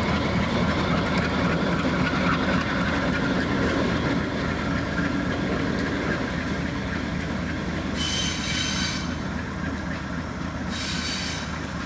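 Diesel locomotive and train rolling along the track, the engine running steadily under the noise of wheels on rail. Two short high-pitched bursts come near the end.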